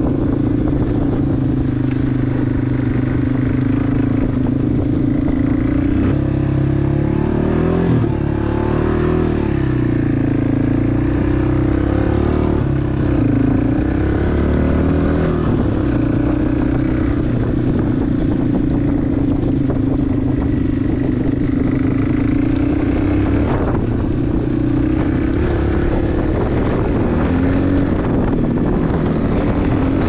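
Dirt bike engine running while ridden along a trail, heard from on the bike. Its note rises and falls with the throttle between about 7 and 16 seconds in and holds steady otherwise.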